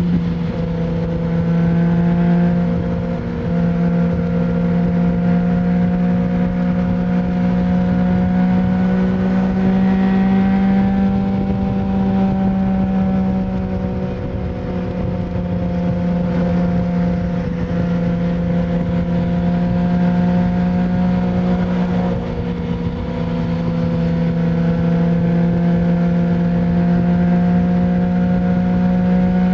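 2020 Yamaha MT-09's three-cylinder engine through an Akrapovic full-system exhaust with no dB killer, cruising at fairly steady revs under the rider. The note rises and falls only slightly, easing off briefly twice.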